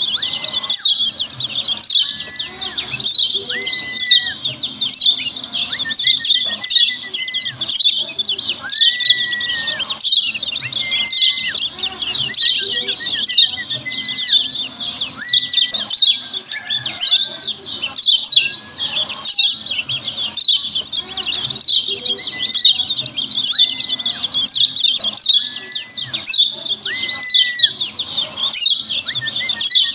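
Lemon-bellied white-eye (kecial kuning) giving a rapid, unbroken stream of sharp, high "ciak" chip calls, several a second, with short whistled notes lower down every second or so.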